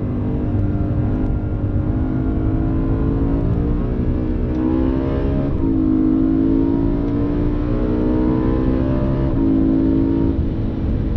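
BMW M3 E92's V8, heard from inside the cabin, pulling hard on track: its pitch climbs under acceleration and drops suddenly about halfway through and again near the end, as at upshifts, over heavy tyre and road rumble.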